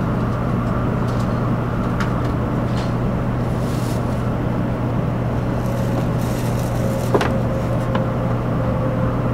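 Cabin running noise of a JR West Series 500 Shinkansen in a tunnel: a steady low hum under a constant rush. A faint whine comes in after about five seconds, and a single sharp click sounds about seven seconds in.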